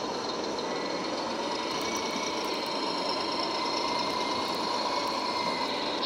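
Radio-controlled scale Mercedes-Benz Arocs dump truck running: a steady mechanical whirring and rattle with a thin, even whine.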